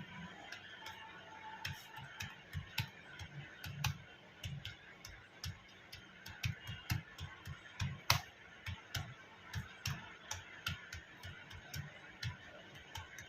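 Keystrokes on a Portronics Bubble wireless keyboard: light clicks of keys being typed in quick, uneven runs, several a second.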